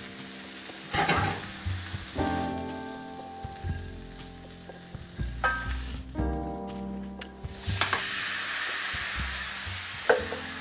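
Squid sizzling as it fries in oil in a cast iron skillet, with a few knocks of utensils. About seven and a half seconds in, liquid poured into the hot pan to deglaze it sets off a sudden loud hiss of steam that holds almost to the end.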